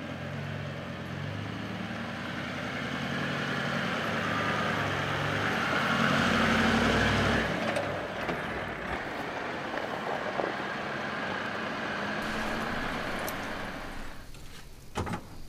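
A 4WD's engine running as it drives slowly up a grassy bush track and past, getting louder until about seven seconds in and then fading away. Near the end a campfire crackles with a few sharp pops.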